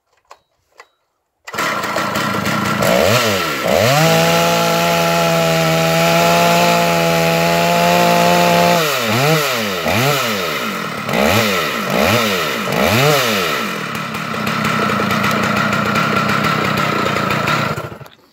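Large chainsaw mounted in a chainsaw mill running at high revs. It comes in suddenly about a second and a half in, climbs and holds a steady high pitch, then is revved up and down about four times before running steady again, and stops just before the end.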